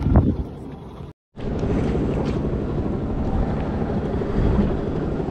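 Steady wind buffeting the camera microphone on a boat at sea, a dense low rushing noise with no clear engine tone. The sound drops out completely for a moment about a second in, where the footage cuts.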